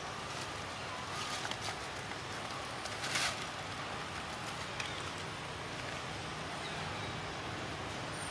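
Dry leaf litter rustling and crackling in short bursts as the monkeys move on it, loudest about three seconds in, over a steady outdoor background hiss.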